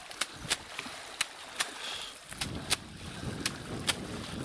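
Water sloshing and splashing as people wade through a pond hauling a large seine net. Sharp light splashes come every half second or so, and a denser swishing of water starts about two seconds in.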